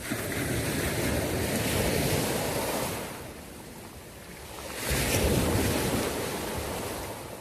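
Sea waves surging and washing in twice: one swell at the start lasting about three seconds, then a second one about five seconds in.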